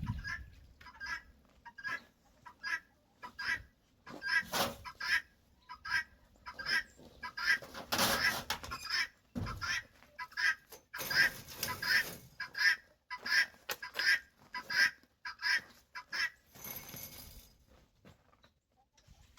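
Farmyard poultry calling in a steady run of short, repeated calls, about two a second, with a few louder, noisier stretches near the middle.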